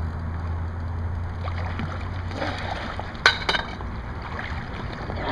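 River water splashing as a hooked flathead catfish is brought in to be landed, with two sharp splashes close together about three seconds in, over a steady low hum.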